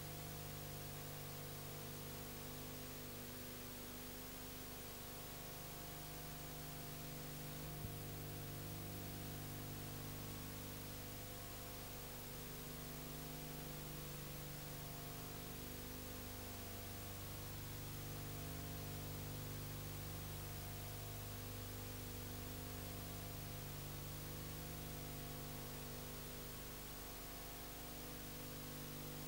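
Steady electrical mains hum with hiss and no other sound, and a single click about eight seconds in.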